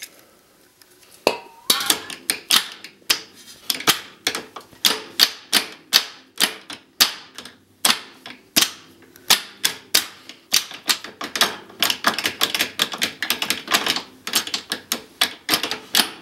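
A steady run of sharp mechanical clicks, about two or three a second, starting about a second in, with a brief squeak near the start.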